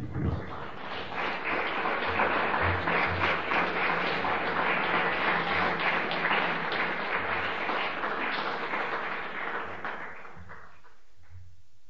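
Audience applauding, building over the first couple of seconds and dying away about ten seconds in.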